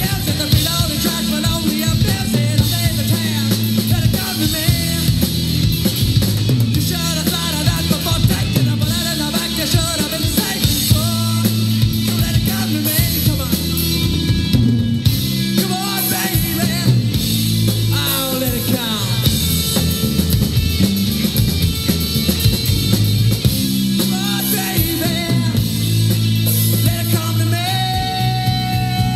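Live rock band playing: electric guitars, drum kit and violin, with a male lead singer. A long held note comes in near the end.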